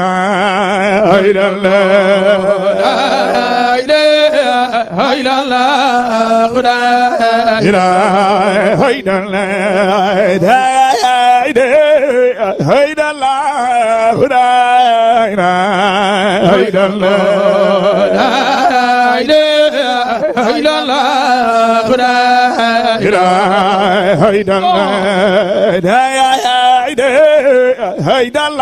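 A man's voice chanting a Sufi zikr (Islamic devotional remembrance of God) in long, ornamented phrases with a quick, wide vibrato.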